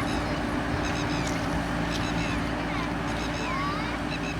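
Diesel engine of a JCB 3DX backhoe loader running steadily with a low drone, while birds chirp repeatedly in short, quick calls over it.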